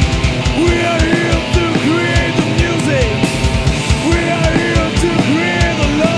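Melodic hardcore band playing an instrumental passage: distorted electric guitars and a fast drum kit, with a lead line that slides up into each held note.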